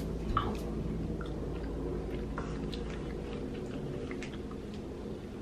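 Faint mouth sounds of chewing small Haribo Pico-Balla gummy candies, soft scattered little clicks over a low steady room hum.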